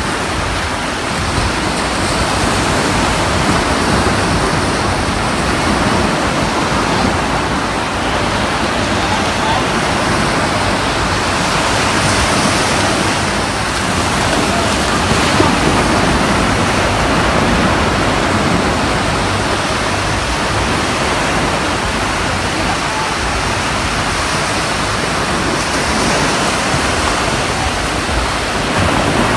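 Steady rush of surf breaking and washing up a shallow sandy beach.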